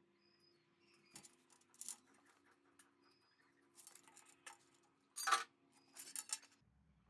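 Light metallic clicks and clinks of a steel square and tape measure being handled on a sheet of steel plate, the loudest a short rattle a little past five seconds in, followed by a few sharp clinks.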